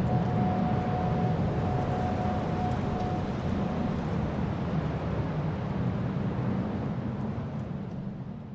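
Low, steady droning ambience from the soundtrack's closing bars, with a thin held tone over it for the first few seconds, fading out near the end.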